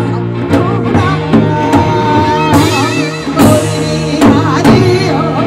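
Korean traditional music ensemble with gayageum playing a lively piece: regular drum strokes under a melody with wide vibrato.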